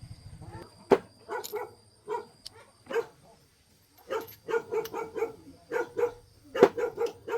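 A dog barking repeatedly in short, irregular barks, several coming in quick runs, the loudest about a second in and near the end.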